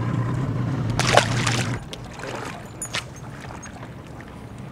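Boat motor humming low and steady, with a brief rushing noise about a second in. Then the hum stops, leaving faint water and wind noise and a light click.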